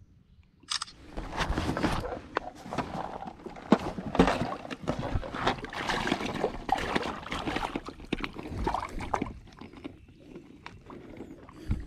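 Water sloshing, with knocks and rustling from a fish and gear being handled aboard a fishing kayak.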